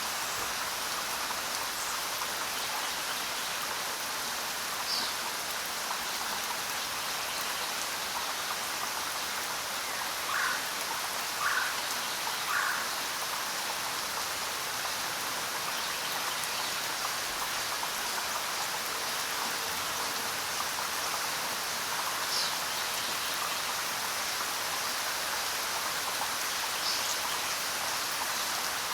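Steady rain falling in a forest, an even hiss of drops. Birds call over it: a few short high chirps, and a run of three lower notes about a second apart near the middle.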